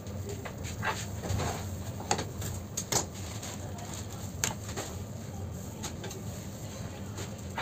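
Light scattered clicks and taps from spreading whipped cream over a sponge cake layer with a spatula and handling the bowls, over a steady low hum.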